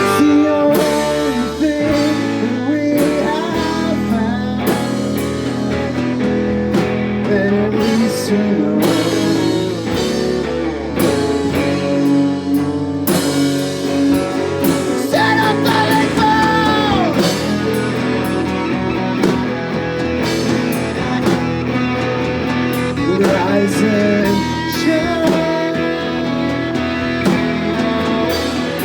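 Rock band playing live: guitars and drum kit, with a singing voice over them.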